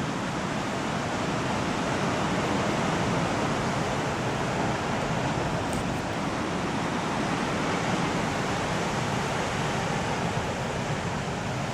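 Steady rushing noise of ocean surf, mixed with wind.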